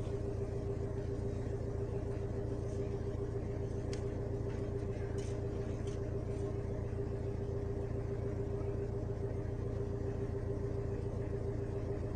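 A steady low engine rumble with an even fast pulse and a constant hum, like an engine idling.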